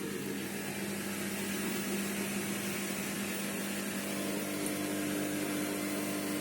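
Bosch Series 6 Vario Perfect front-loading washing machine running a spin: a steady motor hum with a light hiss, growing slightly louder, with a second higher tone coming in about four seconds in.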